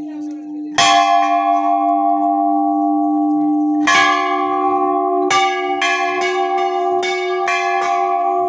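Large hanging metal temple bell rung by hand: one strike about a second in, another about three seconds later, then a run of quicker strikes, about two a second, each ringing on over the last.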